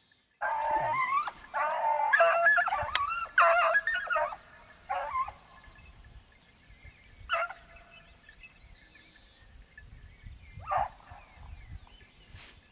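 Hunting hounds baying on a hare's trail: several dogs bark and howl over one another for the first few seconds, then three lone barks follow further apart.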